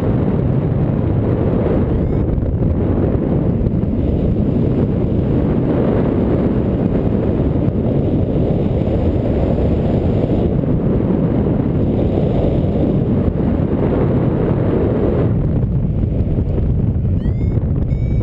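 Steady wind noise buffeting the camera microphone of a paraglider in flight, a loud even rumble. A few faint short rising beeps come in near the end.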